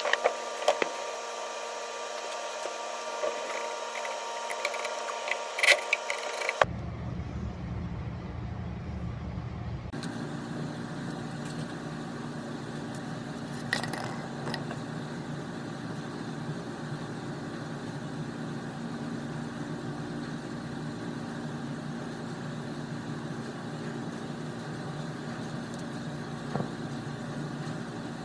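A steady mechanical hum with scattered light clicks and clinks. The hum changes abruptly twice, first to a deeper hum about six seconds in, then again about ten seconds in.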